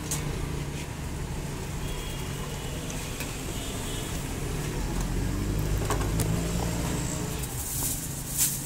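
A knife cuts a grilled sandwich on a cutting board, with a few sharp taps of the blade against the board over a steady low background rumble. Near the end a sheet of aluminium foil is pulled from its box and crinkles.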